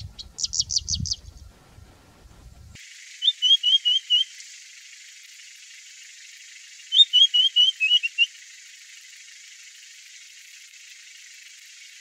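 Red-winged lark singing two short phrases, each a quick run of five or six slurred whistled notes, about four seconds apart. Near the start comes the end of a singing bushlark's song, a rapid run of six high notes.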